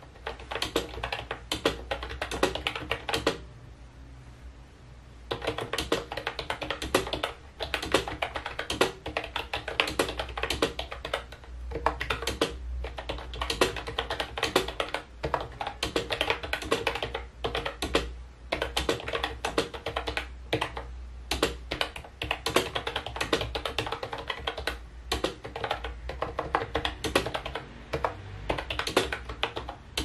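Fast typing on an Ajazz 308i keyboard: a dense run of clicky keystrokes, with a pause of about two seconds a few seconds in.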